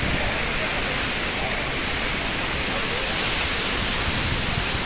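Dudhsagar waterfall's cascading water making a steady, loud rushing hiss.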